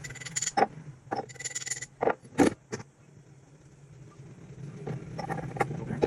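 Metal tools clinking and tapping in a jeweller's workshop: a run of short sharp clicks and knocks, with two brief high metallic ringing bursts in the first two seconds, over a low steady hum.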